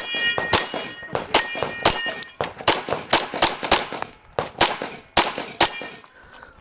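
Rapid string of 9mm Major pistol shots from a Limcat open gun, roughly a dozen cracks in under six seconds, several of them followed by steel targets ringing on hits.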